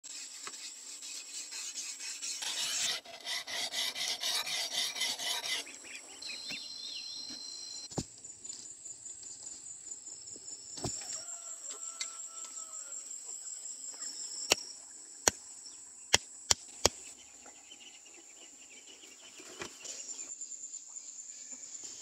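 Outdoor insect chorus: a steady high trilling drone runs throughout, with a louder pulsing call for about three seconds near the start and a few short bird-like calls. Sharp clicks cut through, one around a third of the way in and a run of five quick ones a little after the middle.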